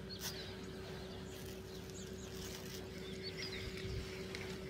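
A few short, faint bird chirps over a steady hum, with a single click just after the start.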